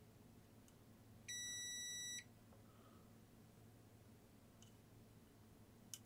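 A digital multimeter's continuity beeper sounds once, a steady high beep lasting about a second. The probes are across a capacitor, and the beep shows a short across its terminals.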